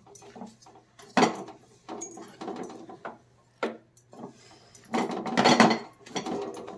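Wooden spatula stirring and scraping a thick, seedy mix of sesame, peanuts and coconut through jaggery syrup in a stainless steel pan, in irregular strokes, loudest about five seconds in.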